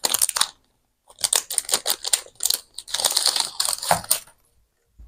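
Hands handling gift packaging: bursts of crinkling and small sharp clicks, with a short pause about half a second in and quiet near the end.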